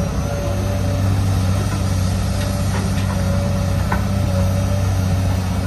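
A steady, low engine hum like an idling motor, with a few faint clicks about halfway through.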